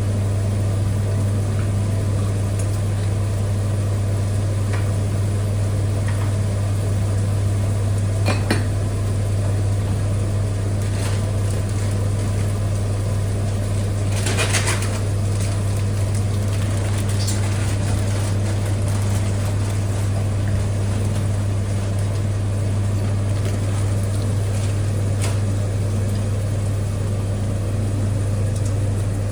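Steady low hum of a running kitchen appliance, with a few light clinks and knocks of kitchenware and one short clatter about halfway through.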